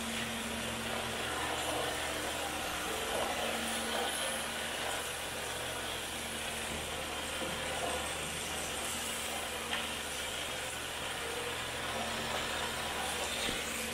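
Electric MST rear-wheel-drive RC drift car circling continuously on concrete, a steady motor whine and tyre scrub as it slides sideways around the turn.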